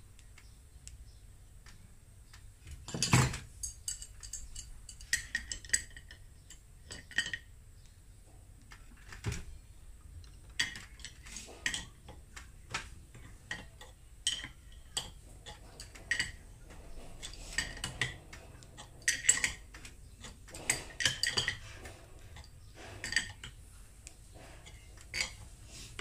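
Scattered metal clinks and clicks as a puller is fitted onto a ceiling fan's motor casing, its metal parts knocking against the casing and each other. The loudest knock comes about three seconds in.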